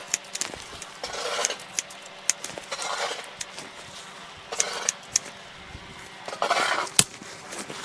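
Barber's scissors snipping hair in sharp clicks, with short rustling passes of the comb through the hair between the cuts.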